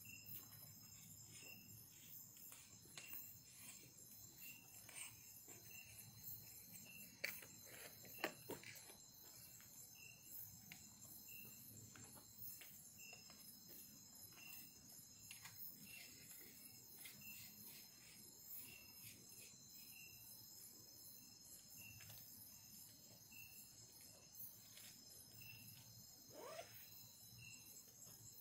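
Faint night insect chorus: a steady high-pitched trill with one chirp repeating about once a second. Two sharp clicks come about seven and eight seconds in, and a short falling call comes near the end.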